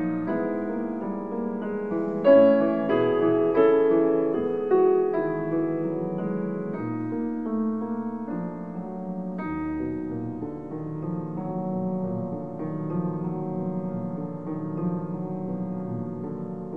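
Piano music playing, a melody of separate notes over lower held tones, with its loudest notes about two to five seconds in.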